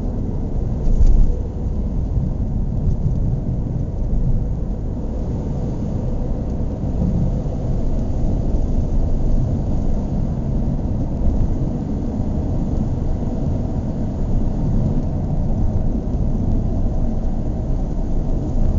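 Car engine idling steadily, its sound mostly low in pitch, with a brief louder moment about a second in.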